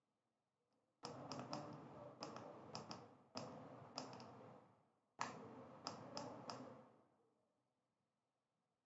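Small tactile push buttons on an i2C KC01 battery repair tester clicking as they are pressed repeatedly, in two quick, irregular runs of about half a dozen clicks each.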